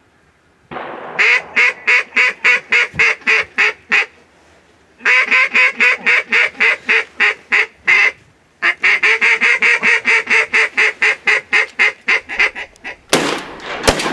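Duck call blown in three long runs of loud, rhythmic mallard-style quacks, about four a second, a hunter calling to passing ducks over decoys. Near the end, a sharp crack and a steady rushing noise.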